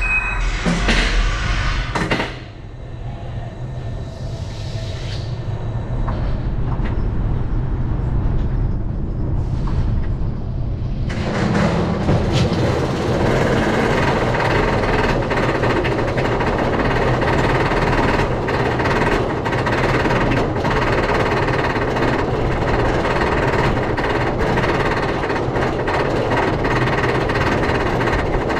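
Steel roller coaster train, heard from its back row, leaving the station with a few clunks and a building rumble as it rolls out. About eleven seconds in, the lift hill mechanism engages with a loud, steady mechanical clatter and whir as the train climbs the lift hill.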